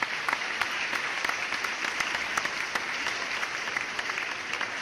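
Audience applause: many hands clapping densely and evenly.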